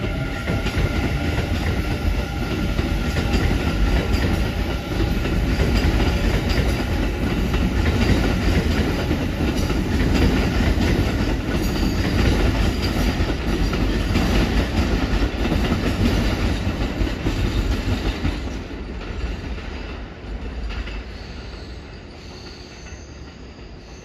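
Hanshin Railway electric commuter trains rolling through a junction of track switches, their wheels clattering over the rail joints and points. The noise stays loud, then fades over the last several seconds as the trains move off.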